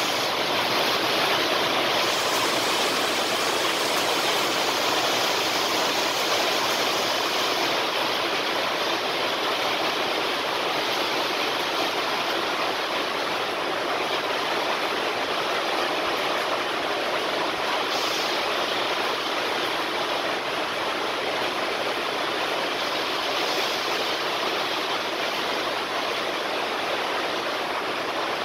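A steady, even rushing noise with no pitch or rhythm, holding level throughout.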